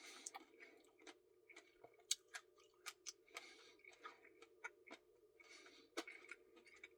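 Quiet eating of ice cream: faint, scattered mouth clicks and chewing sounds, about a dozen small ticks, over a low steady hum.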